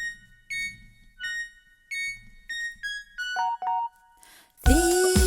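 Intro music: bright, bell-like electric piano notes played one at a time, about one every half second, quickening into a couple of lower notes. A short swish follows, then near the end a fuller, louder arrangement with a steady beat comes in.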